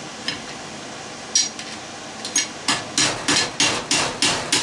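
Hammer driving a screwdriver against the piece of tin covering the bearing in a hot tub pump motor, metal on metal. A few scattered taps come first, then a quick run of about seven strikes, roughly three a second, through the second half.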